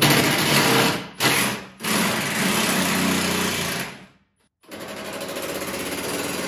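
Cordless impact driver loosening T40 Torx tailgate hinge bolts: three bursts of hammering in the first four seconds, a short pause, then a longer, steadier run.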